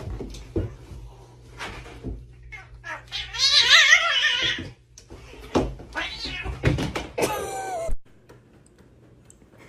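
A cat meowing: a long, wavering yowl about three seconds in and a shorter call around seven seconds, with scattered knocks and clicks in between.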